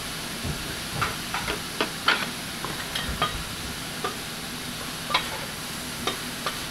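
Beef sizzling steadily on a steel flat-top teppan griddle, with irregular sharp metal clicks and scrapes of spatulas working the meat on the plate from about a second in.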